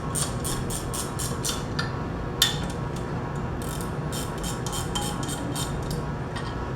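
Ratchet wrench clicking in quick runs of about four clicks a second as the four bolts holding the pump collar to the motor are snugged, with one sharper metal clink about two and a half seconds in.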